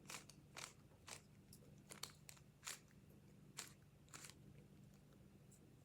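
Faint, irregular clicks of a 3x3 speed cube's layers snapping as they are turned quickly during a solve.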